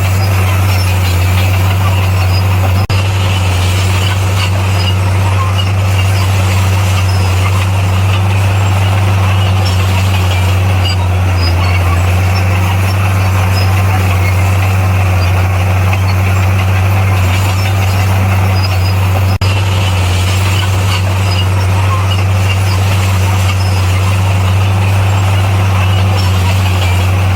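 Bulldozer's diesel engine running under a steady, unchanging low drone, with two momentary dips about three seconds in and again about twenty seconds in.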